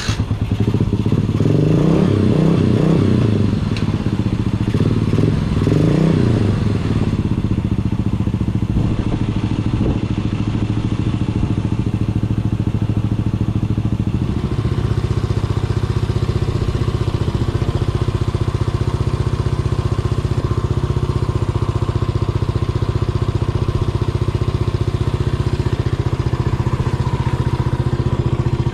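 Yamaha SR400's air-cooled single-cylinder engine running, blipped twice in the first few seconds and then settling to a steady idle.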